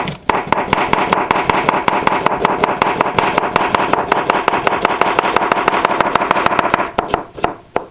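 Kitchen knife rapidly slicing cucumbers against a cutting board: a fast, even run of chopping knocks, several a second, that stops about seven seconds in. It makes a lot of noise.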